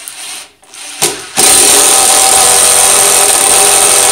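Ryobi 18V cordless impact driver driving a three-inch screw into a wooden 4x4. It runs quietly for the first second, then about a second and a half in the impact hammering starts and stays loud and steady to the end.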